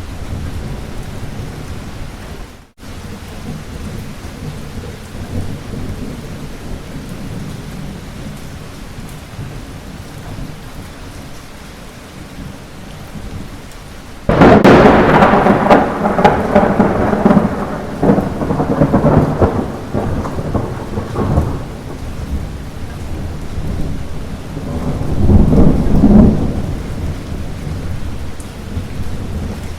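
Steady light rain with thunder. About halfway through, a sharp thunderclap breaks in and crackles and rumbles for several seconds, and a second rolling rumble swells near the end. The rain cuts out for a split second a few seconds in.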